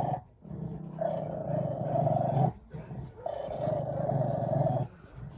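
A month-old Alaskan malamute–husky cross puppy giving drawn-out, growly howls: two long calls of about two seconds each, with a short break between them.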